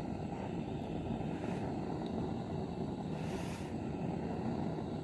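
Gas blowtorch flame running steadily while scorching a wooden board, with a brief louder hiss about three seconds in.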